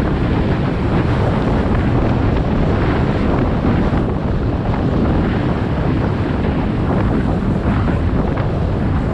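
Loud, steady rush of wind buffeting the microphone of a moving rider.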